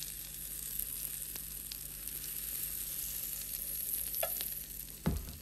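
Plantain waffle batter sizzling as it is poured onto the hot, greased plates of a waffle iron: a steady hiss with a few small crackles, and a thump near the end.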